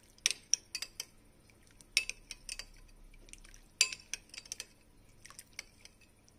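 A metal spoon stirring liquid in a ceramic bowl, clinking irregularly against the bowl's sides and bottom, with the sharpest clinks just after the start and a little before four seconds in.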